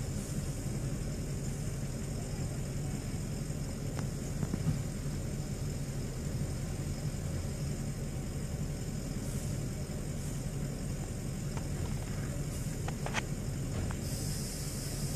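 Vehicle engines running nearby in stopped traffic, a steady low rumble with a faint hiss.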